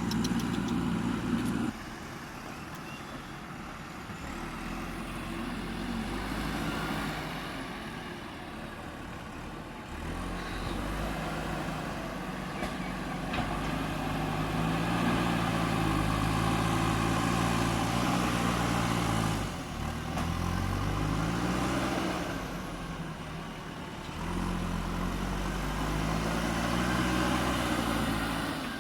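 JCB 3DX Super backhoe loader's diesel engine working: it runs quietly at first, then revs up and holds high under load, dips and swings up and down in pitch for a few seconds, then revs up again.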